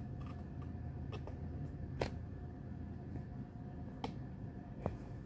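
A few light clicks and taps of hands handling squishy toys, the loudest about two seconds in, over a low steady room hum.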